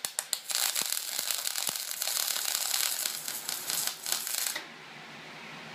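Shielded metal arc (stick) welding arc being struck with a few sharp crackles, then burning with a steady crackling sizzle for about four seconds before cutting off suddenly.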